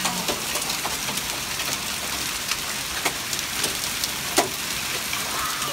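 Hail falling on a concrete path and garden bed: a steady hiss with scattered sharp clicks of hailstones hitting.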